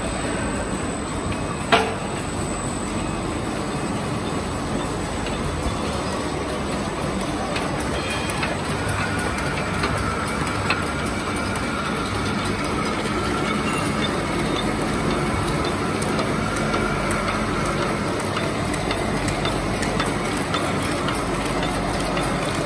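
Cube pressing and wrapping machine line running: a steady mechanical clatter, with one sharp click about two seconds in and a faint steady whine joining from about eight seconds on.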